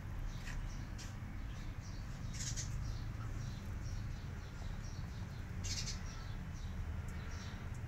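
A scared feral kitten hissing twice, short breathy hisses about two and a half and six seconds in, over a steady run of rapid high chirps.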